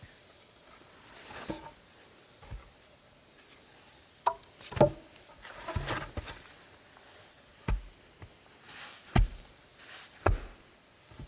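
Wooden knocks and thuds at irregular intervals, as wood is worked or handled, with a stretch of scraping and rustling in the middle. The four loudest knocks fall about halfway through and near the end.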